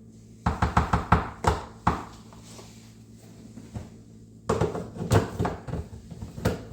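A utensil knocking and scraping against a container as more ice cream is scooped into the blender: a quick run of knocks, and another near the end.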